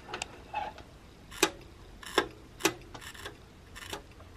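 Irregular sharp crackles and pops from a Heathkit GR-64 tube shortwave receiver's loudspeaker with the volume turned up, three of them louder than the rest; a sign that the set's audio section is working.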